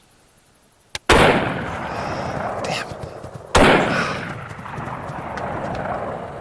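Two rifle shots about two and a half seconds apart, each followed by a long fading echo, with a short click just before the first.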